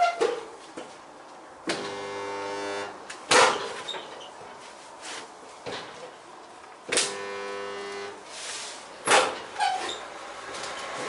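Resistance spot welder joining the steel boot-floor panels of a classic Mini, making two welds. Each weld starts with a sharp knock as the arms clamp, then about a second of steady electric buzz while the current flows, then another sharp knock as they let go.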